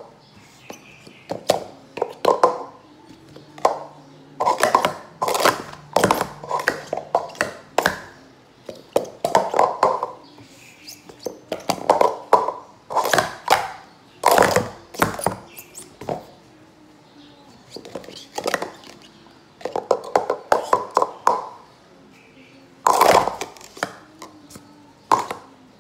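Green plastic sport-stacking cups clattering as they are rapidly stacked into pyramids and swept back down on a stacking mat. The clicks and knocks come in quick runs of a second or two with short pauses between.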